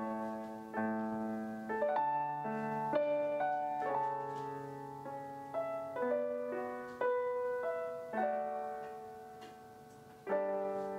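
Background piano music: gentle notes and chords struck about once a second, each fading away.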